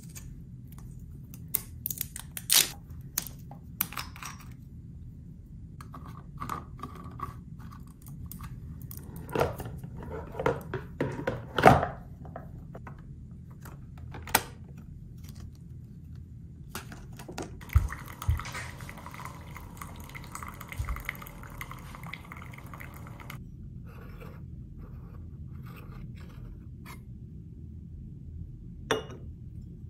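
Capsule coffee machine being handled and loaded: plastic clicks and knocks as the lid is worked and a capsule popped in, one sharp knock the loudest. Then the machine pumps and pours coffee for about six seconds before stopping abruptly, and a single click comes near the end.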